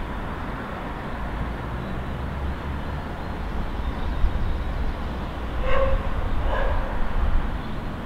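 Steady low rumble of distant city traffic, with a dog barking twice about six seconds in.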